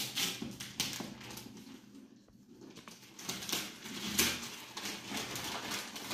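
Gift wrapping paper rustling and crinkling in short bursts as a present is unwrapped, with a quieter stretch about two seconds in.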